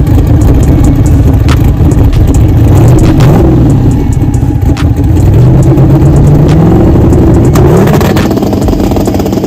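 Twin-turbo car engine held on the two-step launch-control limiter, the revs stepping up and holding, with sharp cracks from the limiter running throughout.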